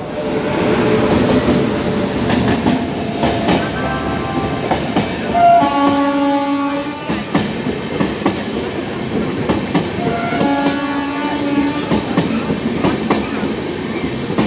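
Electric-hauled passenger train pulling out and rolling past, wheels clacking over the rail joints. Two horn blasts, each a little over a second long, sound about midway through, some four seconds apart.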